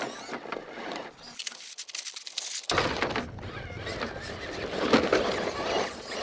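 1/10-scale Element RC Enduro Knight Runner crawler climbing over rocks: its electric drivetrain whining under load, with clicks and knocks of tyres and chassis on the stones.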